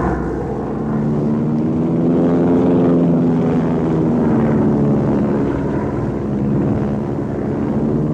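Propeller airliner engines in flight, a loud, steady drone with a slight waver in pitch.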